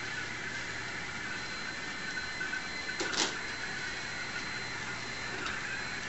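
Small drive motors of iRobot Roomba robots whirring steadily as the robots creep across the floor, with a thin high steady whine. A brief scuffing noise comes about three seconds in.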